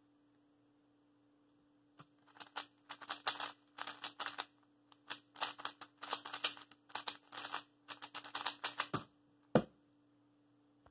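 A 3x3 speed cube being turned rapidly in a speedsolve: quick runs of plastic clicking and clacking from the layer turns for about seven seconds, ending with one sharp knock.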